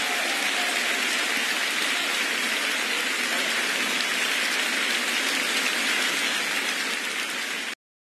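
Large audience applauding steadily; the applause cuts off suddenly near the end.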